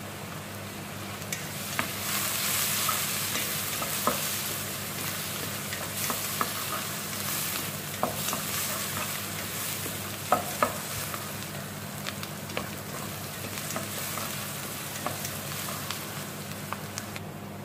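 Chopped onions sizzling as they fry in oil in an aluminium pot, being browned, while a wooden spatula stirs them and now and then scrapes and knocks against the pot, two sharp knocks just after the middle.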